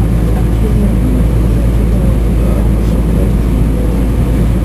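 Steady low drone inside a standing Kagoshima City Tram 7000-series U-Tram II low-floor tram, with a faint, thin, high whine held throughout.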